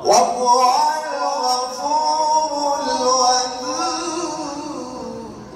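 Male Quran reciter chanting in the melodic tajweed style: one long ornamented phrase of held, wavering notes that starts loud and fades toward the end.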